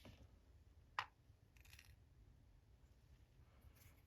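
Near silence broken by one sharp, small click about a second in, then a faint brief scrape: small metal padlock parts such as pins and springs being handled during disassembly.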